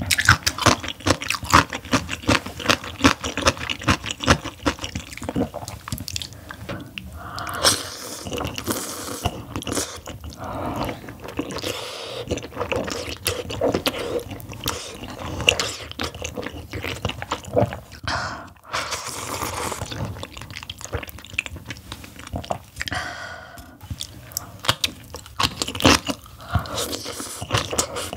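Close-miked eating sounds: rapid crunchy chewing of napa cabbage kimchi, with wet chewing and a few slurps of seaweed-oyster kalguksu noodles.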